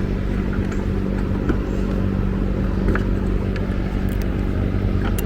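Steady mechanical hum throughout, with a few light clicks of a plastic headlight bulb socket being handled.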